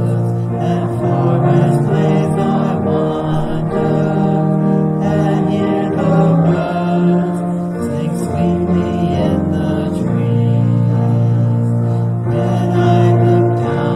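Congregation singing a hymn with musical accompaniment, sustained notes in slow, steady phrases.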